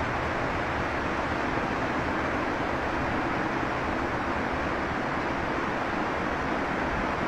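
Vehicle forcing its way through deep snowdrifts: a steady rushing noise of its engine and the snow it throws up, without a break.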